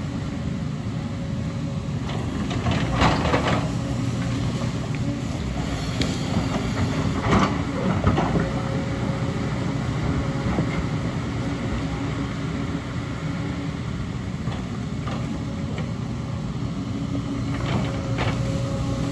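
Tracked excavator's diesel engine running steadily under hydraulic load, with the steel bucket scraping and knocking against rock and soil a few times, loudest about three seconds in and again around seven to eight seconds.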